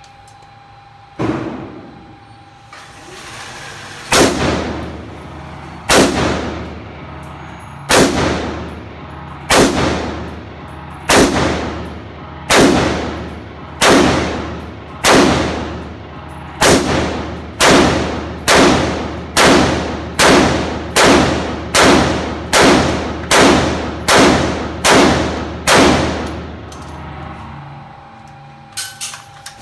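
AR-15 rifle fired semi-automatically, about twenty single shots, each echoing in an indoor range. One shot comes first, then after a pause they come about two seconds apart, quickening to roughly one a second before stopping. A couple of light clicks follow near the end.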